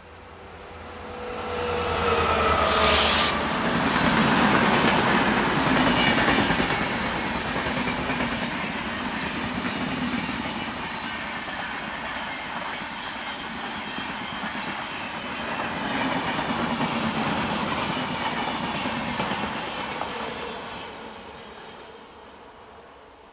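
A train passing at speed. The locomotive goes by about three seconds in with a drop in pitch. Then the wheels clatter rhythmically over the rail joints as the coaches rush past, and the sound fades near the end.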